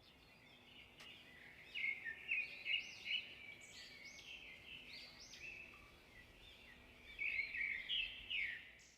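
Birdsong: a songbird singing quick, arching chirped notes in two phrases, one from about two seconds in and one near the end.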